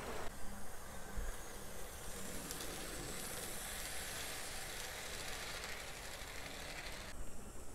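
HO-scale Tyco model freight train running past close by on its track: a steady rolling hiss from the cars' wheels on the rails, mixed with the running of the locomotive's Power Torque drive. The hiss drops away sharply near the end.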